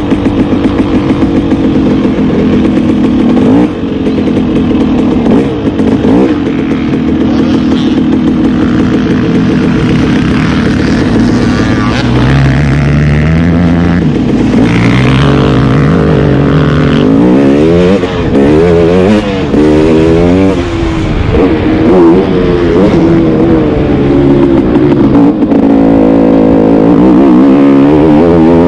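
KTM 300 XC two-stroke dirt bike engine under way. It runs steadily at low speed at first, then from about halfway the revs rise and fall again and again as the bike accelerates and shifts through the turns.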